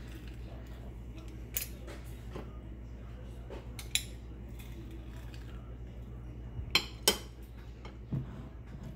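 A few sharp clicks and clacks of a plastic hand-held lime squeezer being worked and handled, the loudest a close pair about seven seconds in as it is set down on a ceramic plate, over a steady low hum.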